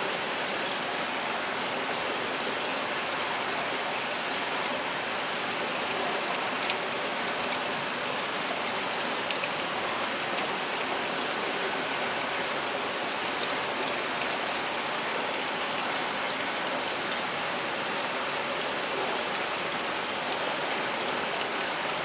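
Steady rushing of water flowing through fish-hatchery incubation trays.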